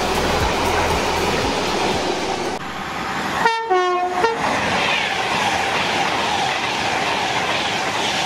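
Train of tank wagons rolling past with wheels clattering over the rail joints. A Pendolino electric express then sounds a short two-note horn, high then lower, about halfway through and rushes past at speed.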